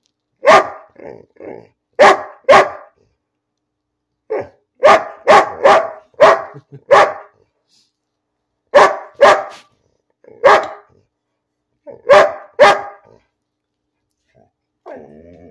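Large dog barking over and over at a person with no evident cause, in runs of two to six short barks separated by pauses of a second or two.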